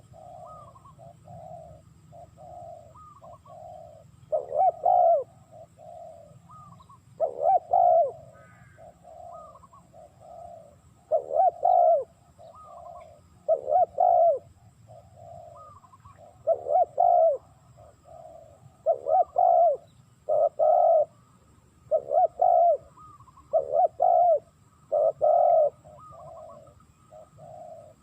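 Spotted doves cooing: a steady run of low coos, with loud coo phrases every two to three seconds and softer coos in between.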